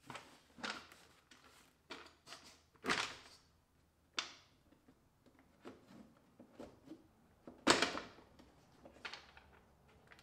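Scattered plastic clicks, knocks and scrapes as the engine's airbox housing is lifted and the air filter is slid out of it. The loudest knocks come about three seconds in and again near eight seconds.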